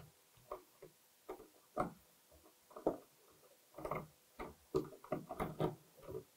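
Faint, irregular clicks and scrapes of a pipe support bracket's self-tapping screw being turned into a drilled pilot hole in the wall. The clicks come more often in the second half.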